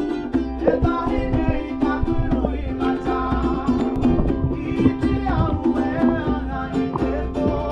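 Background music: a song with plucked strings and a singing voice.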